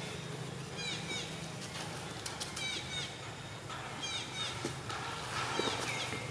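High-pitched animal chirping calls in short bursts of three or four quick falling chirps, repeating about every one and a half seconds, over a steady low hum.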